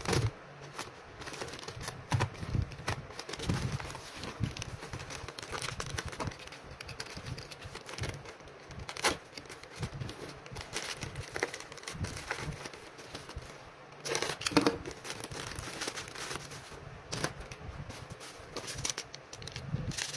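Plastic courier mailer bags and packaging crinkling and rustling as they are handled and opened, with irregular crackles and clicks, the loudest about two-thirds of the way through.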